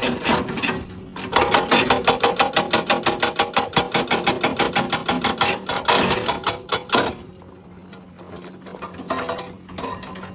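Hydraulic breaker on a Komatsu PC200 excavator hammering rock in a fast, even run of blows, about ten a second. The blows stop about seven seconds in, leaving the excavator's engine running steadily, with a few scattered blows near the end.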